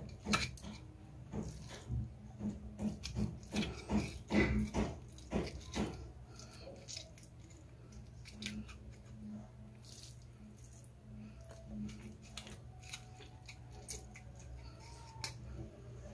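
Hands stuffing longganisa filling through a cut plastic-bottle funnel into sausage casing: a run of small clicks and rustles of plastic and fingers, frequent for the first six seconds, then sparse.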